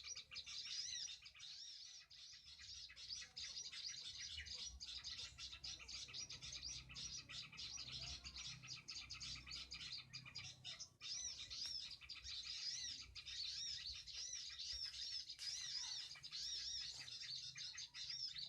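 Small birds chirping continuously in quick runs of short, high, arched notes, with a faint low rumble underneath.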